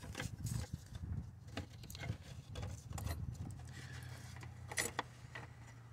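Scattered light clicks and knocks of metal parts and tools being handled at the car battery as its hold-down bracket is taken off, with a faint low steady hum setting in about halfway.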